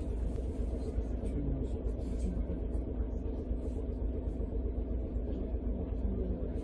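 Steady low rumble inside a standing Sapporo streetcar, with road traffic passing alongside.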